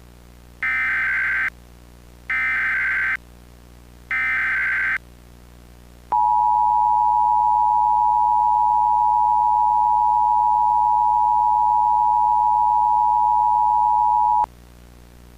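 Emergency Alert System SAME header: three short bursts of screechy digital data tones about a second apart, followed by the EAS two-tone attention signal (853 and 960 Hz together), held steady for about eight seconds before cutting off.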